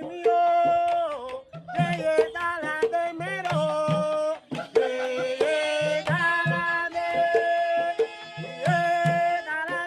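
Music: a melody of held notes with slides and ornaments over a hand-drum rhythm.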